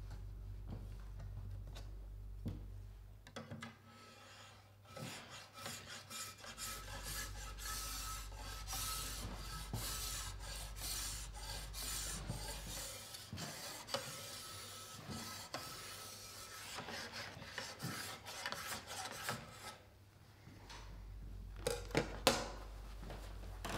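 Metal file in a base-angle guide rasping along a ski's steel edge in a quick run of strokes, cutting the base-side edge bevel (the 'hanging' edge). It starts a few seconds in and stops a few seconds before the end. A few sharp knocks follow near the end.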